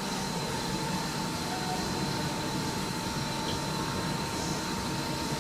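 Steady machine noise with a constant whine running through it, unchanging throughout.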